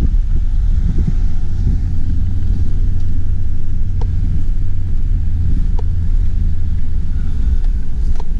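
A car moving along, heard as a steady low rumble of road and engine noise, with a couple of faint ticks.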